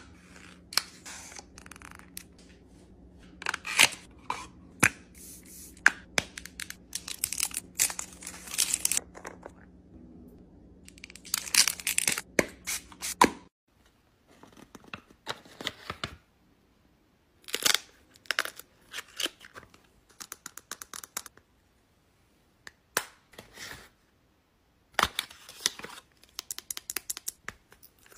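Hands handling cosmetics packaging: paper and cardboard rustling, crinkling and tearing, with sharp clicks and taps of caps and boxes, in short bursts separated by pauses. A faint steady low hum lies under the first half and cuts off about halfway through.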